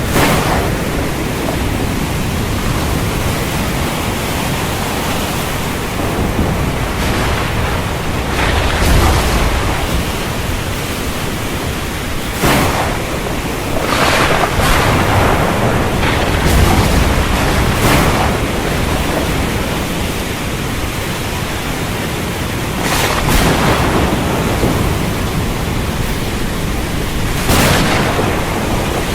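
Stormy sea: steady wind and rough waves, with about eight breaking surges that briefly swell and hiss loudly, and deeper rumbles twice around the middle.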